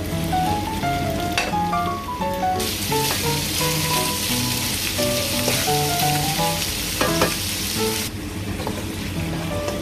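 Thin beef slices sizzling as they fry in a hot oiled wok with shallots and garlic, stirred with a spatula. The sizzle starts about two and a half seconds in and cuts off suddenly about eight seconds in, over light background music with a simple melody.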